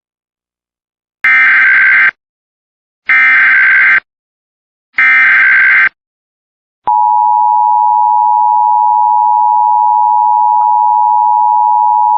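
Emergency Alert System SAME header: three identical bursts of digital data, each a harsh buzzing screech just under a second long, the first about a second in, encoding a civil danger warning. About seven seconds in, the steady EAS attention tone starts and holds, signalling that the spoken alert message follows.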